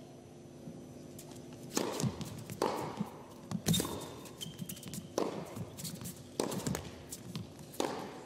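Tennis serve and rally: about six sharp hits of racquet on ball, one to one and a half seconds apart, over a faint steady hum, with a short high squeak near the middle.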